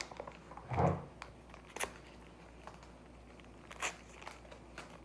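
Plastic packaging of a Pokémon bread being handled and opened to get at the sticker inside: a few scattered sharp crackles and rustles, spaced out over several seconds.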